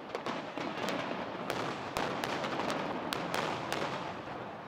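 Fireworks display going off: a quick, irregular series of sharp bangs and crackles over a continuous background haze of noise.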